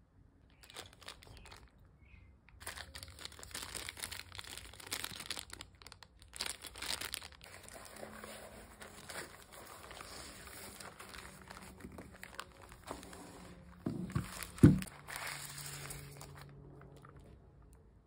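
Plastic packaging crinkling and rustling against foam as a keyboard in its plastic bag is handled and drawn out of its box, with one sharp knock about three-quarters of the way through.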